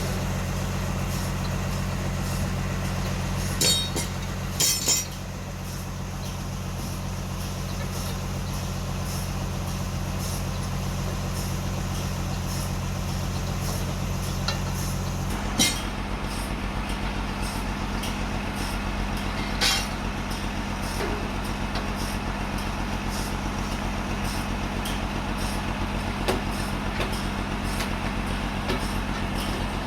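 Sawmill's engine running steadily. Its note shifts slightly about five seconds in and again about halfway, and a few short, sharp metallic clanks are scattered through.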